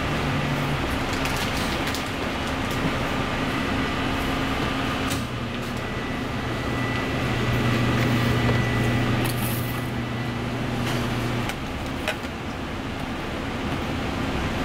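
Steady hum and rushing air of kitchen machinery, with a low drone that grows stronger for a few seconds past the middle and a few light clicks.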